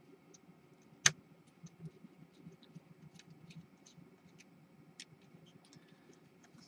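Small screws being worked out of the compass mount in a Hubsan H501s quadcopter's plastic shell: faint scattered clicks and ticks of tool and fingers on small parts, with one sharp click about a second in.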